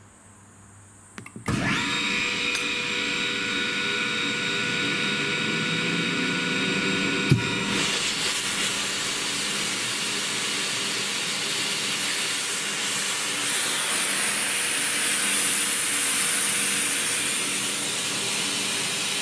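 ELGI E05en rotary screw air compressor starting up about a second and a half in, running with a steady motor and airend whine. About seven seconds in a sharp click is followed by a loud rush of air as it loads and blows out through the opened discharge line, raising about 2.3 bar of back-pressure across the after-cooler and hoses.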